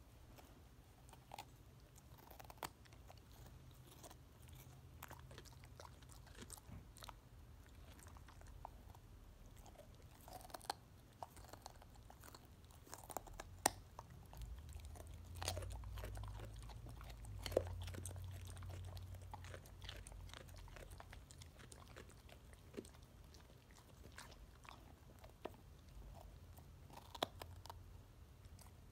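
A pit bull chewing a raw carrot: irregular crunches and wet chewing, with a few louder snaps in the middle as pieces break off.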